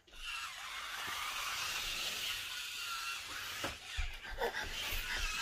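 Small electric drive motors of a toy remote-control stunt car whirring steadily as it drives, then a few light knocks about two-thirds of the way through.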